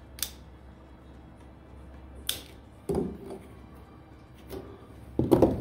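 Side cutters snipping plastic zip ties on the wiring: two sharp clicks, amid handling knocks and rustles, with a louder thump near the end.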